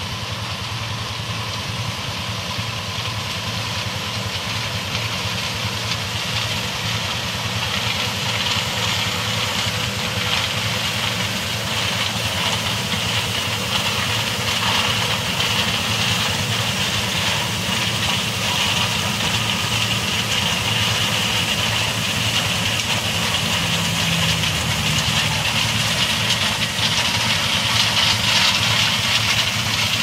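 John Deere 6620 combine running steadily as it harvests corn: the drone of its turbocharged diesel engine mixed with the whir of the header and threshing machinery. It grows gradually louder as the machine comes closer.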